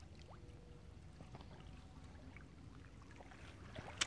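Faint sound of shallow river water moving, with a single sharp click near the end.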